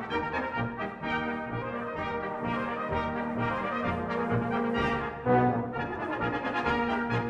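Brass band music: trombones and trumpets playing held chords over a low, regular bass pulse, with a louder new chord coming in about five seconds in.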